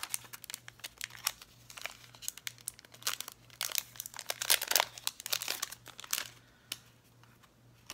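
Paper and plastic packaging crinkling and rustling as hands unwrap small items, in quick dense crackles that die down about six seconds in.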